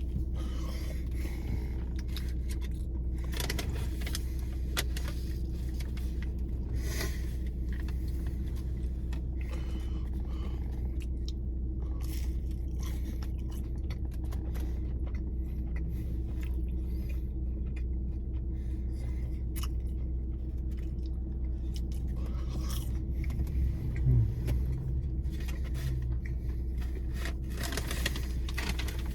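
Eating sounds: chewing and the rustle and crinkle of fast-food wrappers and packaging, with many small clicks, over a steady low hum. A brief louder low thump comes about 24 seconds in.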